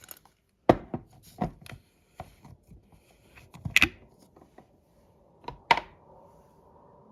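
A series of light knocks and clicks, as of small hard objects being handled and set down, the loudest about three-quarters of a second in, near four seconds and just before six seconds; a faint steady hum comes in near the end.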